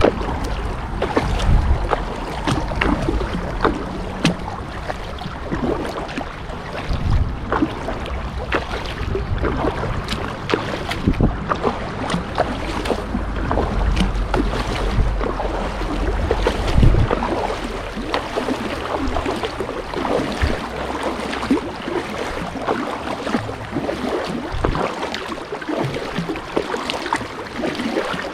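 Water splashing and slapping against the hull of a Pungo kayak as it rides a boat's wake, in many short irregular splashes, with gusts of wind rumbling on the microphone.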